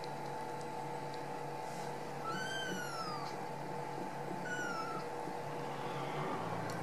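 Young Ragdoll kittens mewing twice, high-pitched: a longer mew that rises and falls about two seconds in, then a shorter falling one about four and a half seconds in, over a steady background hum.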